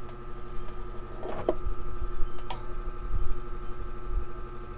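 A steady electrical hum with a few light clicks.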